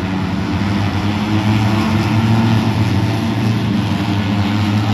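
Motor vehicle engine running at a steady speed: a constant low drone with road noise.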